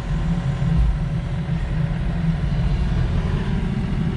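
Heavy engine running steadily with a low rumble, as the machine is positioned for loading onto the trailer.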